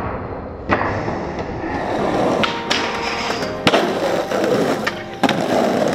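Skateboard wheels rolling on pavement, broken by about four sharp clacks of the board popping and landing, the loudest a little past the middle. Music plays underneath.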